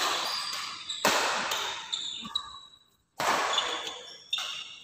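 Badminton rackets striking a shuttlecock during a doubles rally, four sharp hits echoing in a large hall.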